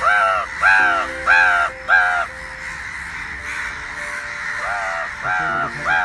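Crows cawing: four harsh caws in quick succession, then after a pause two or three more near the end. They sound over background music with held low notes.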